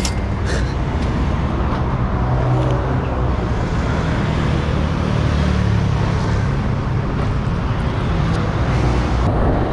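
Vespa scooter engine running while riding, its low note shifting a little, under a steady rush of road noise.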